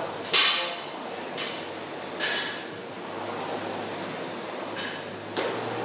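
Concept2 rowing machine's air flywheel and fan running, with a sudden rush of air at each drive stroke that fades during the recovery, over a steady whir.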